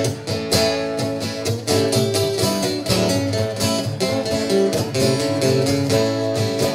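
Two acoustic guitars playing an instrumental break with steady rhythmic strumming under picked melody notes, no singing.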